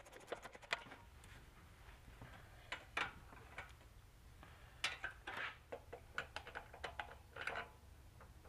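Faint, scattered metallic clicks and clinks of a wrench and small engine parts being handled and fitted while reassembling a Honda GX160 engine's valve cover and carburetor.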